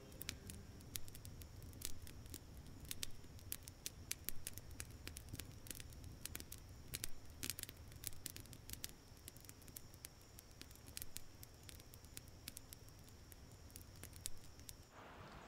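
Wood fire crackling: many irregular sharp snaps and pops over a low rumble, cutting off near the end.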